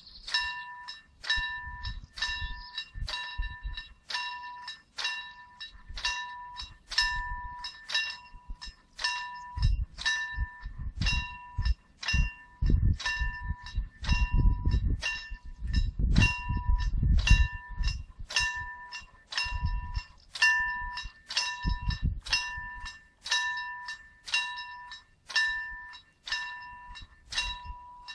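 Level-crossing warning bell ringing steadily, about two even strikes a second, the sign that the crossing is closed for an approaching train. Gusts of wind rumble on the microphone in the middle stretch.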